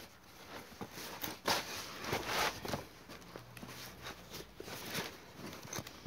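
Hands pulling a rubber inner tube out of a wheelbarrow tyre: rubber scraping and rustling against the tyre, with irregular small knocks, loudest about a second and a half in and again around two to three seconds in.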